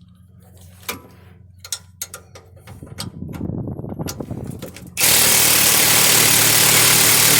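A few scattered clicks, then about five seconds in an impact wrench runs loud and steady for about three seconds, loosening a rear shock mount nut.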